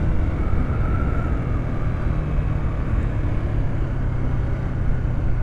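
Manual-clutch motorcycle engine running steadily while the bike is ridden.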